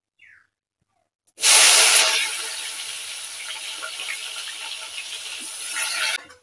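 Food going into a pan of hot oil: a sudden loud sizzle about a second and a half in that soon settles to a steady sizzle, then cuts off abruptly near the end.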